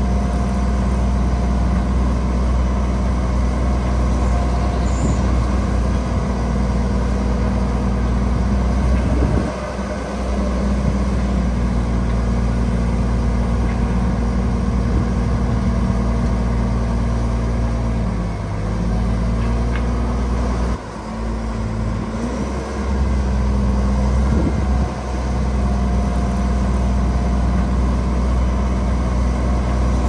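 Heavy diesel earthmoving machinery running steadily under work, its engine sound dipping briefly a few times as the load or revs change.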